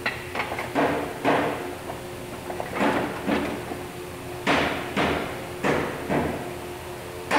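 Hammer blows on wooden stair parts: about a dozen irregular strikes, some in quick groups of two or three, each with a short ring, as the stair is knocked together.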